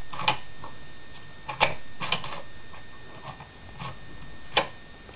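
Toy animal figures and a toy truck knocking and clacking as they are handled, with a handful of separate sharp knocks. The loudest come about a second and a half in and near the end.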